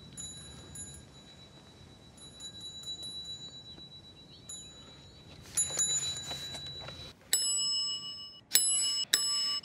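Handheld tap-style service bell dinged three times near the end, each strike sharp and ringing on, after several quieter seconds. It is rung by a man who cannot speak, as his way of answering.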